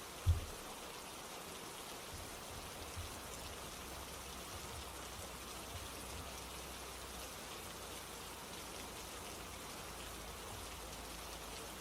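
Steady rain, an even hiss of many drops falling on a surface. A single short, low thump stands out just after the start, with a few fainter low knocks later on.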